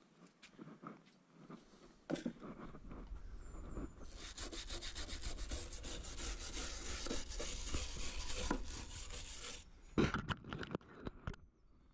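Flat wooden stirring stick rubbing and scraping quickly back and forth along a wooden shed board, working paint or wood treatment onto bare patches. The strokes are sparse at first, then come fast and steady from about four seconds in. A sharp knock follows near the end.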